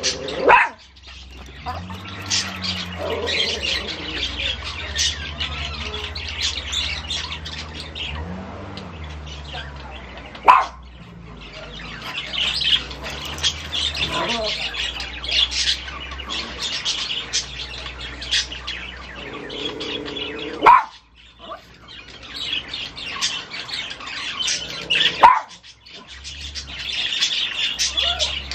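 Small birds chirping busily, broken by a few loud, sharp single yaps from Yorkshire terriers, spaced several seconds apart.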